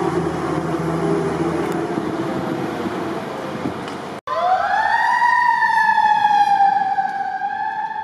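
Street traffic with a fire truck's engine running. About four seconds in, this cuts off abruptly and a fire truck siren sweeps up in pitch, then holds a high, slowly wavering wail.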